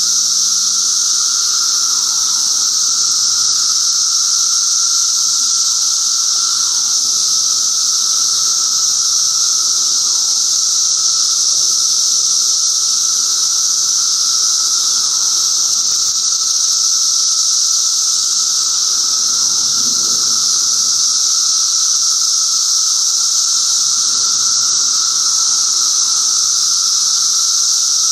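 Massed chorus of Brood XIII seventeen-year periodical cicadas: a loud, steady, high-pitched hiss-like drone with a fainter, lower steady whine beneath it.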